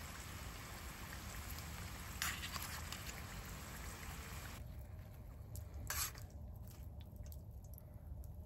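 Hot frying oil sizzling in a skillet as fried strips are lifted out with a spoon. The sizzle cuts off suddenly about four and a half seconds in, and there are two sharp clicks, about two and six seconds in.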